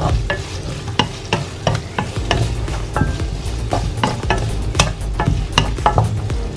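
Pork belly cubes frying in a thick, sticky sauce in a frying pan, sizzling while a spatula stirs them, with irregular clicks and scrapes of the spatula against the pan.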